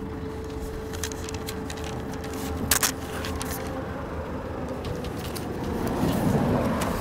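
Road vehicle noise: an engine running steadily with a low hum, a sharp knock about two and a half seconds in, and a louder rush of road noise near the end.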